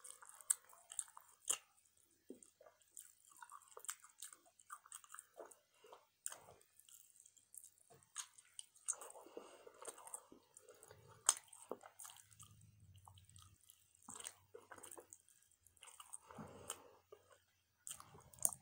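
Close-up chewing and biting of barbecue rib tips, with many small irregular wet clicks from the mouth.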